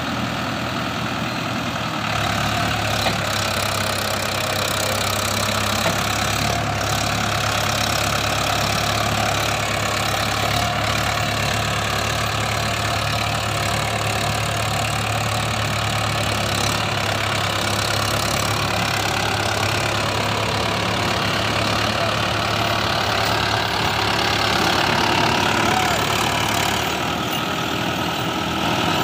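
Swaraj 843 XM tractor's three-cylinder diesel engine running steadily while the tractor, hitched to a loaded trailer, is stuck in mud. It gets a little louder for a couple of seconds near the end.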